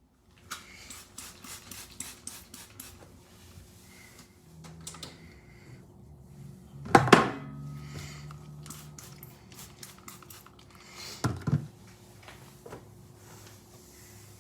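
Kitchen clatter of dishes and utensils: a quick run of light clinks and taps over the first few seconds, then two louder knocks, about seven seconds in and about eleven seconds in, over a faint steady hum.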